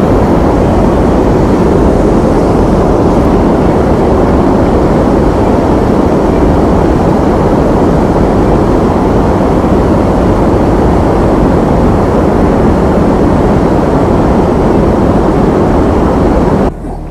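Fishing boat's outboard motor running steadily under way, a loud, even rush of engine and water noise. It cuts off abruptly just before the end.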